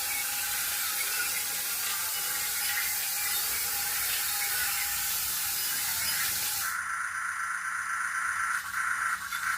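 Small radio-controlled toy excavator running with its built-in electronic sound effects: a steady hiss, which stops about seven seconds in, then a buzzy electronic tone.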